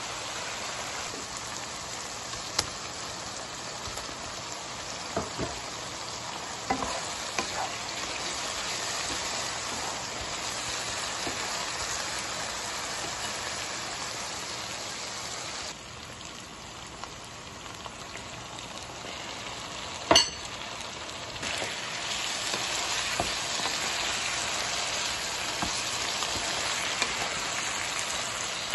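Thick pepper sauce with snails frying and sizzling in a pan, stirred with a spoon, with scattered light clicks of the utensil and one sharp knock about two-thirds of the way through.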